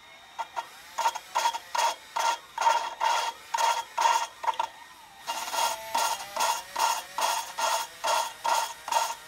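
A drill turns an exhaust valve of a 2.2L turbo cylinder head in short pulses, about two or three a second, as the valve is lapped against its seat with valve grinding compound. Each pulse carries a whine and a gritty grind, with a short break about five seconds in.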